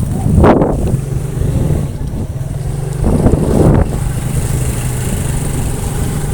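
An engine runs with a steady low hum, and wind gusts across the microphone in two louder rushes, one near the start and one about three seconds in.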